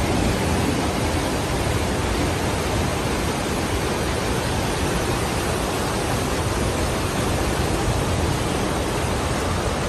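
Fast-flowing floodwater rushing down a street: a steady, unbroken noise with no let-up.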